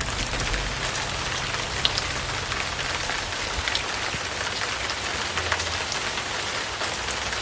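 Heavy rain falling steadily: a dense hiss of rain with many small drop impacts, and a low hum underneath.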